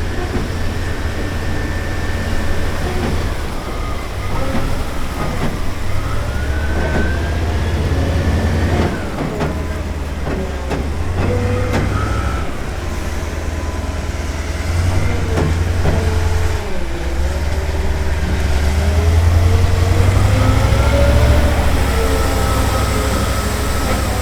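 M3 amphibious bridging vehicle's diesel engine running with a deep, steady rumble, a whine above it slowly rising and falling in pitch as the revs change.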